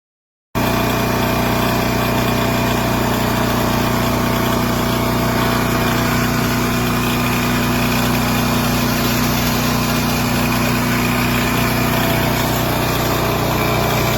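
Westinghouse 14500-watt tri-fuel portable generator's engine running at a steady speed. It comes in abruptly about half a second in, after silence, and holds an even drone.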